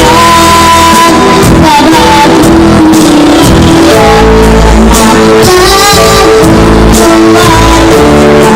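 A child singing solo over loud amplified backing music, holding long wavering notes. The recording runs very loud, close to full scale.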